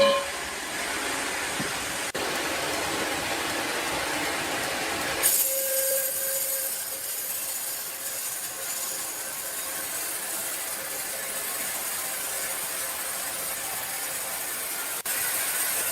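Sawmill machinery running with a steady mechanical noise, sawing wood; the sound changes abruptly about five seconds in and again near the end.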